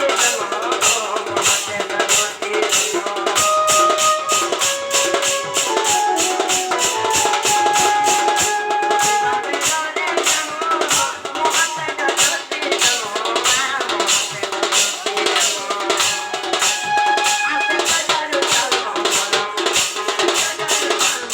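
Instrumental music: a fast, steady percussion beat under a melody of held notes that step from pitch to pitch.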